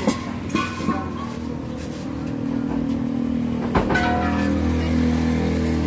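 A motor vehicle engine running steadily, growing louder from about two seconds in, with a few metallic clanks of steel LPG gas cylinders being handled, the loudest about two-thirds of the way through.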